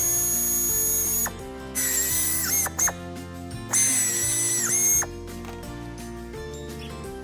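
Background music with three bursts of a high, steady mechanical whine over it, each dipping in pitch as it stops.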